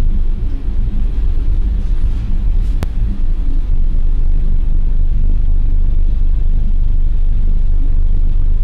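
Storm wind buffeting the microphone aboard a cargo ship in heavy seas, a loud, steady low rumble with an uneven flutter. A single sharp click comes about three seconds in.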